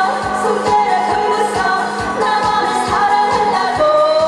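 A woman singing a Korean trot song into a handheld microphone over a backing track with a steady beat, holding a long note near the end.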